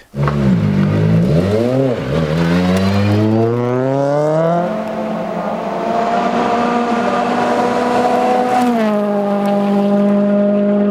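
Ford Fiesta rally car engine accelerating hard. The revs climb through a brief dip about two seconds in, rise to a high pitch and hold there, then ease down a step shortly before the end and hold steady again.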